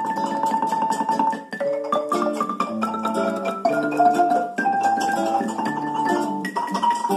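Guatemalan wooden marimba played by several mallet players, its notes held as rapid rolls that move to a new pitch about every second or so, with a nylon-string guitar accompanying.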